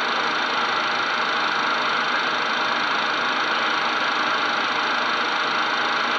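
Steady cockpit noise of a twin-turbofan Cessna Citation business jet descending on approach: an even hiss of engine and airflow, strongest in the upper-middle range, with no changes.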